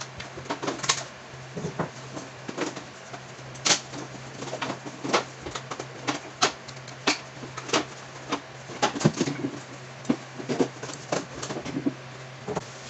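Irregular clicks and light knocks of a chrome-plated metal reverse-light housing being turned over and handled, with a steady low hum underneath.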